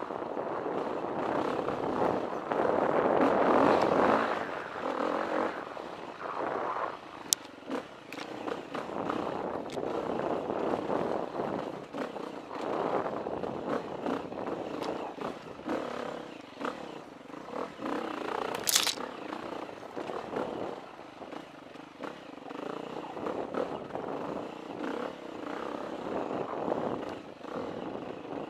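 KTM 350 EXC four-stroke single-cylinder dirt bike engine running under changing throttle on a rocky trail, heard from a helmet-mounted camera, swelling and easing and loudest a few seconds in. Two sharp clicks cut through, a faint one about a quarter of the way in and a louder one about two-thirds through.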